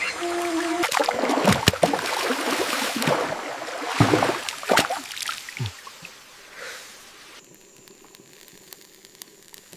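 Water sloshing and splashing with several knocks, dying down about seven seconds in to a quieter background.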